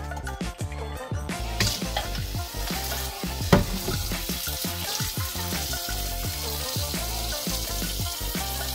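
Water splashing into a stainless steel mesh strainer in a metal sink, coming in about a second in and running on steadily as the broccolini is drained and rinsed under the tap. Background music with a beat plays throughout.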